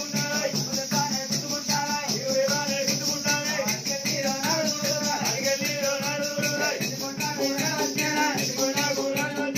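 Oggu Katha folk music: a dhol drum beating a steady rhythm under jingling ankle bells, with a wavering melody line over it.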